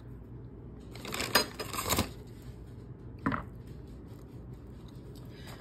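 Clinks and knocks of dishes and containers being handled: a short clatter about a second in, then one more sharp knock a couple of seconds later.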